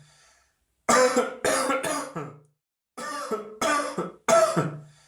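A person coughing: two bouts of three harsh coughs each, about two seconds apart, the last cough of each bout trailing off with the voice.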